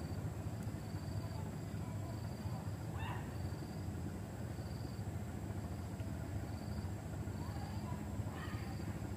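Outdoor ambience: an insect chirping in short high pulses, about three every two seconds, over a thin steady high whine and a low steady hum. A couple of faint, brief animal calls sound in the distance, one about three seconds in and one near the end.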